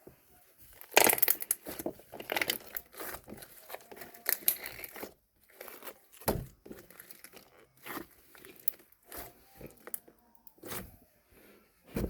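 Crinkling, rustling and tearing sounds of something being handled and crumpled, dense for the first few seconds and then in scattered bursts, with a sharp knock about six seconds in and another near the end.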